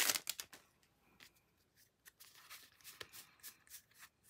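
Foil booster wrapper crinkling briefly at the start, then faint, irregular snaps and slides of Magic: The Gathering cards being taken out and fanned in the hands.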